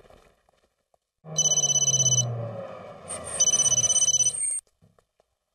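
Telephone ringing with two trilling rings of about a second each, over a low street-traffic rumble that cuts off suddenly near the end.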